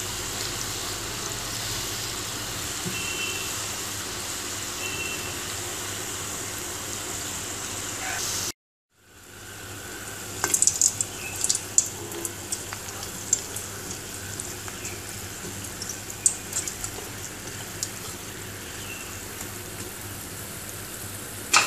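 Maggi-noodle-coated potato fingers deep-frying in hot oil over a low flame: a steady sizzle. The sound cuts out for about half a second around eight and a half seconds in. It then comes back with scattered crackling pops.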